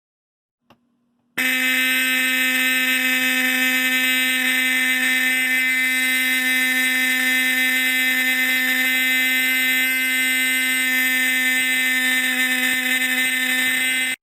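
Simplex 4051 mechanical fire alarm horn sounding continuously: a loud, steady buzzing tone that starts about a second and a half in, just after a faint click, and cuts off at the very end.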